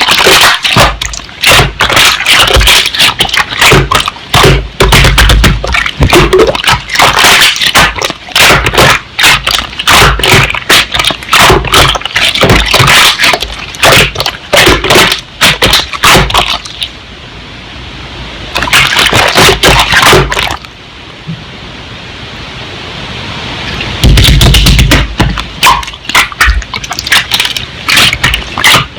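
Slime being squeezed and worked by hand: fast, wet crackling and popping of air pockets, dying down to softer squishing for a few seconds about two-thirds through.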